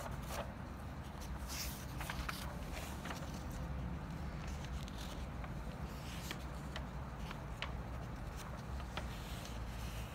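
Paper pages of a workbook rustling and being turned and shifted by hand, in scattered short rustles and light clicks over a low steady hum.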